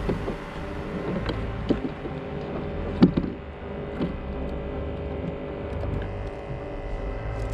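Steady low rumble of vehicle engines with several steady tones running through it. A few sharp knocks come over it, the loudest about three seconds in.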